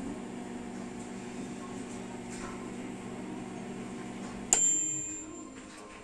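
NEOVE MM7203KW microwave oven, a Japanese 100 V unit converted to run on 220 V, running with a steady hum. About four and a half seconds in its timer runs out: one bell ding rings on and fades, and the hum stops as the oven shuts off.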